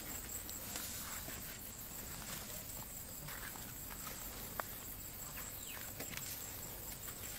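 Faint rustling and snapping of grass and leafy stems as an Asian elephant pulls plants up with its trunk to eat, with one sharper click about four and a half seconds in.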